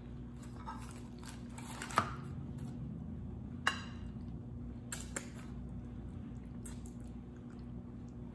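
Saucy stir-fried gopchang sliding and plopping out of a plastic takeout container onto a ceramic plate: soft wet squishing, with a few sharp clicks of container or food against the plate, over a steady low hum.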